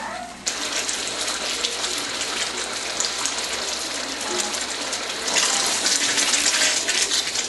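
Masaman curry paste frying in a hot wok, breaking into a loud steady sizzle with fine crackling about half a second in as coconut milk and chicken broth are ladled in; the sizzle grows louder again about five seconds in.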